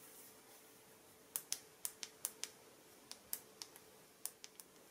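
About a dozen sharp, small clicks in quick irregular groups as the folded Samsung Galaxy Z Flip 5G is handled by its side edge, starting about a second and a half in, over a faint steady hum.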